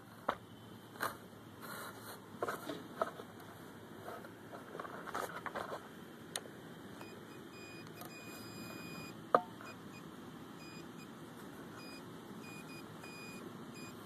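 Soil being dug and scraped, with several sharp clicks, during the first half. After that a metal detector sounds short, high beeps on and off over a target, which the detectorist reads as a nickel, and one sharp click comes about nine seconds in.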